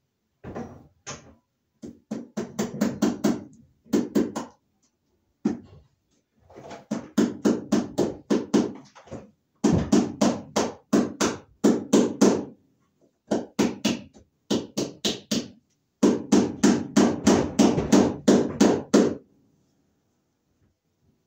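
Hammer driving cable staples into overhead wooden joists to fasten an electrical cable. The knocks come quickly, about five a second, in runs of a second to three seconds with short pauses between.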